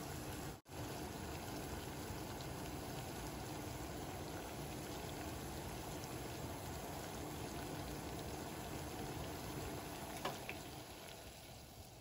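Vinegar, water and brown sugar pickling liquid boiling hard in a pot: a steady bubbling. A light click comes about ten seconds in, and the boil fades down over the last two seconds.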